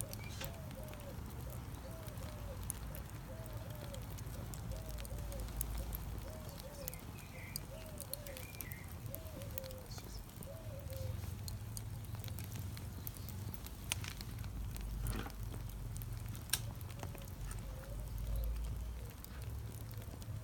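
Flames of a disposable foil-tray charcoal barbecue burning, with scattered sharp crackles over a low rumble. An animal's short repeated calls, about one to two a second, run through the first half and come back near the end.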